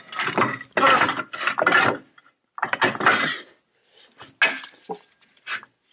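Metal clanking and rattling in several short bursts, from the swinging arms of a two-post car lift being moved into place under the car.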